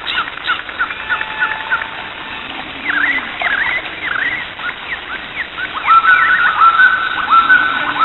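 Several birds chirping and calling over a steady background hiss: quick short notes that sweep up and down, then, from about six seconds in, a repeated call of notes that rise and then hold level.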